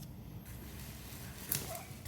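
Faint steady low hum with a brief rustle or click about one and a half seconds in.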